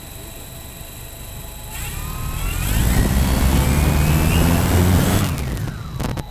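Quadcopter's electric motors and propellers spinning up with a rising whine, running loud for a few seconds, then winding down with a falling pitch. Near the end there is a short knock. Heard very close, from a camera mounted on the quadcopter.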